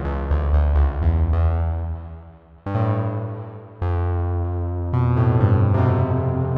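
Synthesizer keyboard music with sustained electric-piano-like chords: a quick run of notes at the start fades out, then new chords are struck about two and a half, four and five seconds in.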